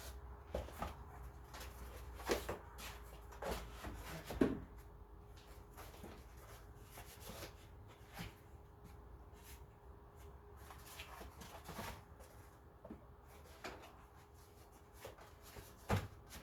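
Scattered light knocks, clicks and rustling of hand tools being handled and set into place, with the loudest knock about four seconds in and another near the end.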